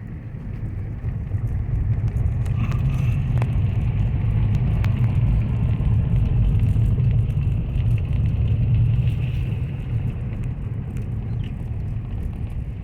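Low, steady rumble of a car driving along a road, growing louder about a second in, with a few faint knocks.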